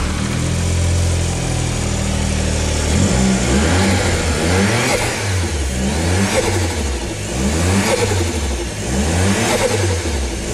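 Suzuki Every kei van's turbocharged three-cylinder engine, just started, idling steadily for about three seconds. It is then blipped by hand at the throttle in a regular series of short revs, each rising and falling, roughly one every second and a bit.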